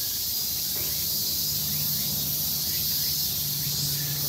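Steady high-pitched chorus of insects, unbroken throughout, with a low steady hum coming in after about a second and a half.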